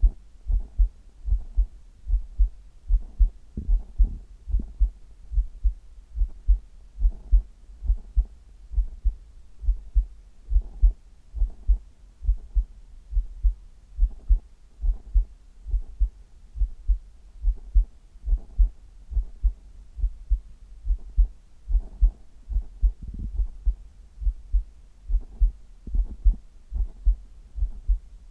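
A human heartbeat heard through the chest: a steady rhythm of low, paired lub-dub thumps, a little over once a second.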